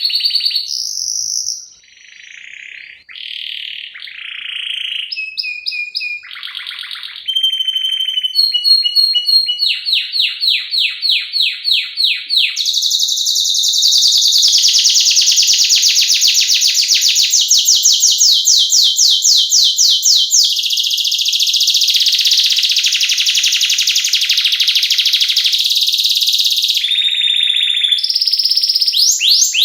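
Domestic canary singing a loud, varied song: short whistled and buzzy phrases at first, then rapid trills that build into a long, fast roll lasting more than ten seconds, with another quick trill near the end.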